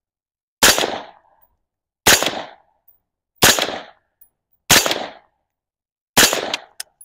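Five suppressed rifle shots from an AR-style carbine, fired singly about a second and a half apart, each with a short tail. The rifle is running overgassed with the suppressor on its standard bolt carrier group.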